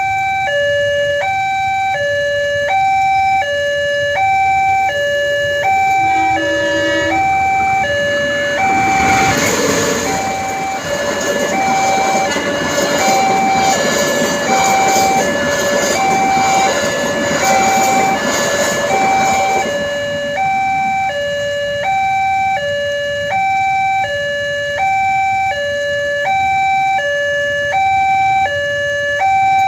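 Railway level-crossing warning alarm sounding a steady two-tone hi-lo signal, switching pitch about once a second. From about nine to twenty seconds in, a passenger train runs through the crossing with loud rumbling and wheel clatter over the alarm.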